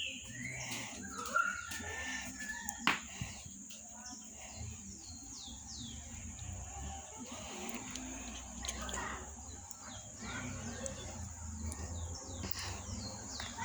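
Faint small birds chirping: short, high, downward-sliding notes repeated on and off. Under them runs a steady high-pitched hiss, and there is one sharp click about three seconds in.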